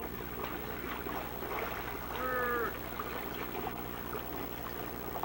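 Water splashing and lapping in a small above-ground pool as children move about in it, with one short child's call about two seconds in, over a steady low hum.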